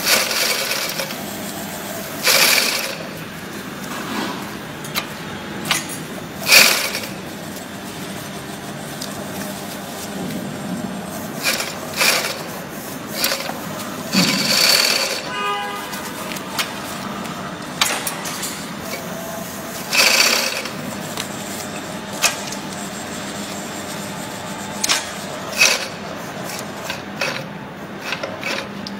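FOXSEW FX-2150M cylinder bed zigzag industrial sewing machine running, stitching a zigzag seam through neoprene. A steady machine noise is broken by short, louder surges at irregular intervals.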